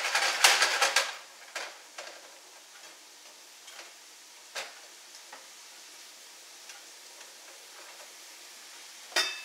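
Diced onions sizzling in schmaltz (chicken fat) in a nonstick skillet, stirred with a spatula: a loud scraping stir in the first second, then a steady faint sizzle with a few light taps of the spatula, and another short scrape near the end.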